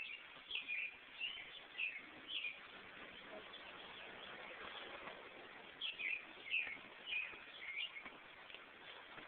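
A small bird chirping in two runs of four or five quick high notes, a few seconds apart, over a faint steady hiss.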